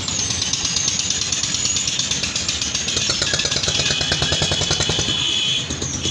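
A vehicle engine running with a rapid, even putter in street traffic, with a high whine above it.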